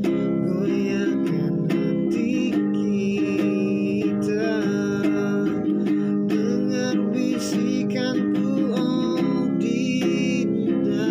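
A man singing in Indonesian while strumming a nylon-string classical guitar, the strums keeping a steady rhythm under the sung line.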